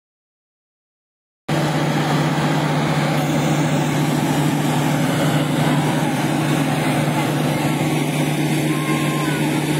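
Near silence for about a second and a half, then pickup-truck engines running, heard through a loud, steady rushing noise.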